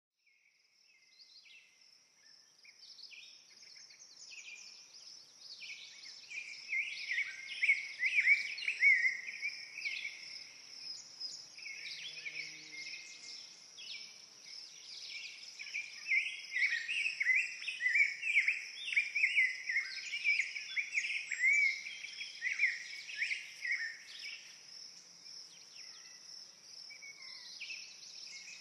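A chorus of many birds chirping and trilling over a steady high-pitched buzz. It fades in over the first few seconds, then runs busy and dense.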